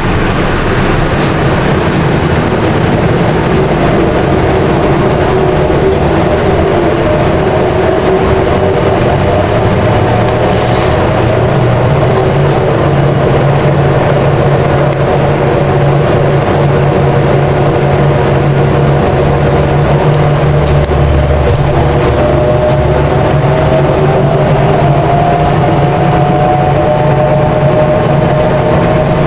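Inside a Volvo B10M Mark IV bus under way, heard from the rear: the mid-mounted diesel engine and Voith DIWA 381.4 three-speed automatic gearbox running. A whirring tone slowly rises in pitch over the running noise. This whirring has gone unrepaired for a year.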